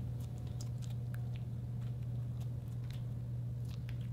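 Sticky slime giving small, irregular clicks and pops as a finger presses and kneads it, over a steady low hum.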